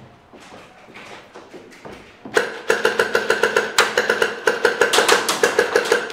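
Airsoft electric gun firing on full auto: starting a little over two seconds in, a fast, loud rattle of shots over a steady gearbox whine, several shots a second.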